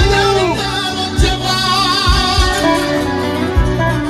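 Live Romanian manele music: a man sings long, wavering, ornamented notes through a microphone and PA over a band with a steady low beat.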